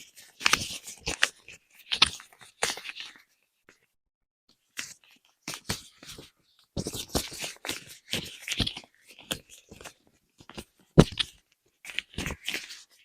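Latex balloons being squeezed and rubbed up close, in irregular bursts of rubbery rubbing and crinkling with short silent gaps between them. The sharpest, loudest burst comes about eleven seconds in.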